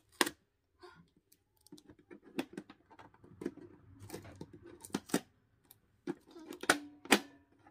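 Hands working the small plastic lock and latch of a toy locker box: an uneven string of sharp plastic clicks and knocks, the loudest a few near the end.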